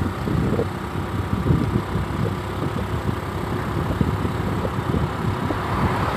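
Low, uneven rumble of wind buffeting the microphone mixed with road noise while moving along a street.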